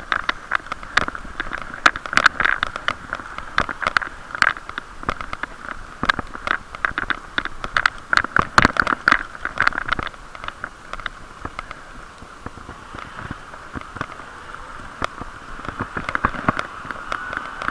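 Bike lock rattling against the handlebar of a bicycle ridden over a bumpy road, making rapid, irregular clicks and knocks that thin out after about ten seconds into a steady hiss of riding noise. It is all muffled and boxy, as heard through the camera's waterproof case.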